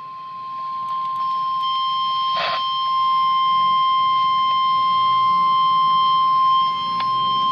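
Weather radio warning alarm tone: a single steady high tone near 1050 Hz held for about seven and a half seconds, then cut off abruptly. It signals that a weather warning broadcast follows. A brief hiss comes about two and a half seconds in.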